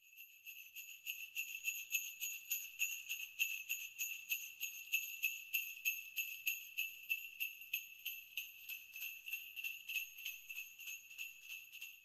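Sleigh bells shaken in a steady, even rhythm, about four or five shakes a second. They fade in at the start and fade out near the end.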